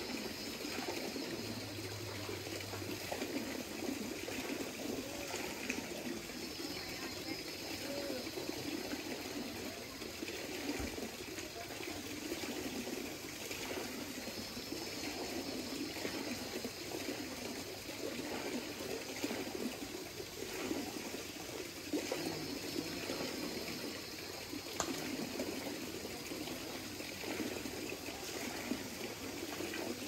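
Hot-spring water running over small cascades into the thermal pools, a steady rushing and splashing with no break.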